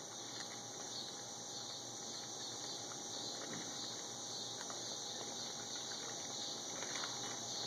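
Steady high-pitched insect chorus, pulsing gently throughout, with a few faint small clicks from raccoons feeding at plates.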